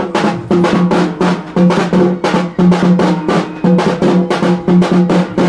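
Loud, fast, steady drumming: rapid repeated strokes in an even rhythm, with a strong pitched drum tone underneath.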